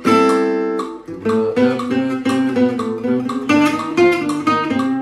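Gypsy jazz acoustic guitar, picked. A ringing chord opens, then a quick run of single notes, ending on one held note near the end. The run superimposes C minor over an A minor chord for a modern sound.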